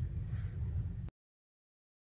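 Low steady rumble of room tone with no speech, cutting off abruptly to dead silence about a second in.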